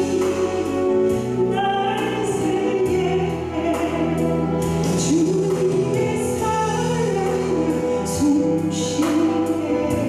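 A woman singing a Korean gospel song into a handheld microphone over instrumental accompaniment, her held notes wavering with vibrato.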